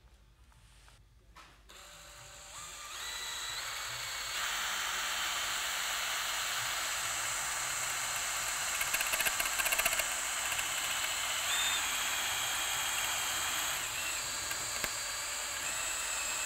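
Cordless drill running in reverse, its left-hand drill bit grinding into the metal head of a one-way security screw to bore a pilot hole for a bolt extractor. The drill starts about two seconds in and then runs steadily, its whine changing pitch a few times, with a brief crackle of the bit biting near the middle.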